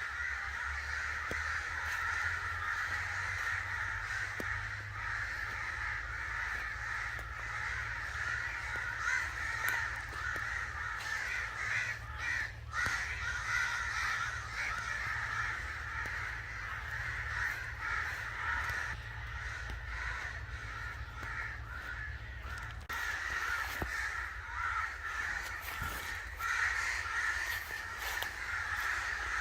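A flock of crows cawing continuously, many harsh calls overlapping into a dense chorus.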